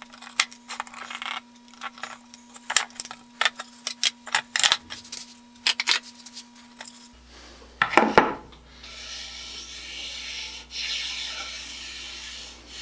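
Side cutters working old tacks out of wooden tool box moulding boards: a run of short sharp clicks and scrapes of steel on tack and wood. About eight seconds in comes a single knock, followed by a steady rubbing scrape of wood.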